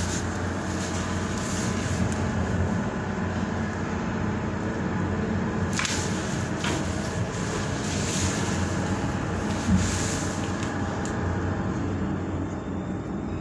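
Mobile crane's diesel engine running steadily, a low even drone with a constant hum, and a short knock about ten seconds in.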